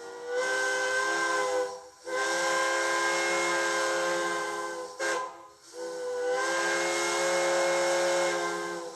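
A recorded steam locomotive chime whistle, several tones at once over a hiss of steam, played from a TCS WOWSound decoder through the small speaker in an HO-scale model's tender. It blows two long blasts, a short toot and a long blast, the long-long-short-long pattern of a grade-crossing signal.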